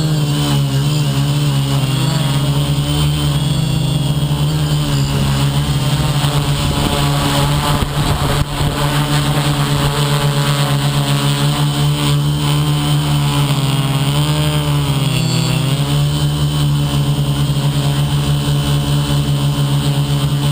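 Motors and propellers of a radio-controlled FPV model aircraft running in flight: a loud, steady hum whose pitch wavers with the throttle, briefly dipping in loudness a little before the middle and shifting again about three-quarters of the way through.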